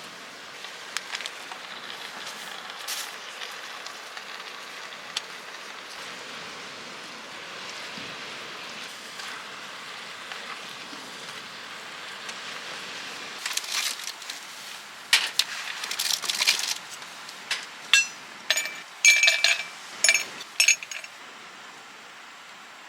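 Tableware and cookware clinking and knocking during camp cooking, over a steady soft hiss. Scattered ticks at first, then a run of sharp, ringing clinks in the second half.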